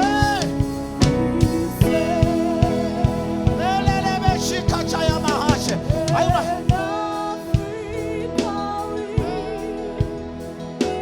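Gospel worship music: sustained keyboard chords with a voice singing a wavering, melodic line over them, and a steady beat of percussion hits.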